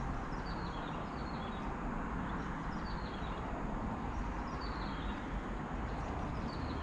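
A small bird calling over and over, short high notes that each fall in pitch, about two a second, over a steady low rush of wind on the microphone.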